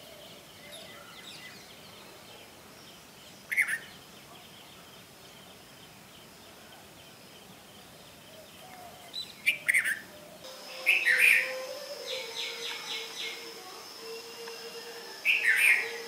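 Red-vented bulbul calling: short, bright phrases spaced a few seconds apart, the loudest in a cluster past the middle and again near the end, with a quick run of about five short notes between them.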